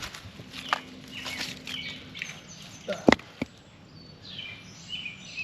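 A few sharp clicks and knocks, the loudest about three seconds in, with birds chirping near the end.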